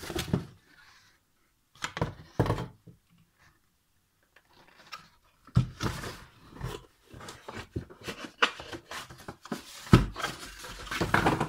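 Desk handling noise: scattered knocks, thunks and rustles as things are moved about on a newspaper-covered work table, in clusters about two seconds in and through the second half, with quiet gaps between.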